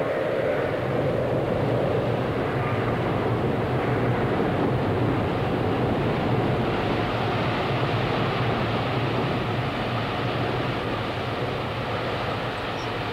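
Strong wind blowing steadily through conifers in a winter storm, a continuous even roar.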